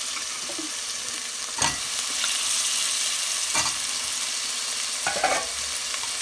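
Potato slices going into hot oil and fried masala in a metal pot and sizzling, the hiss growing louder as more pieces go in. Three short knocks as pieces land or touch the spoon and pot.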